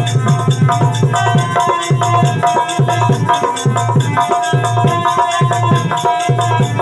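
Instrumental music: drum strokes in a quick, steady rhythm, about five a second, under sustained melodic notes.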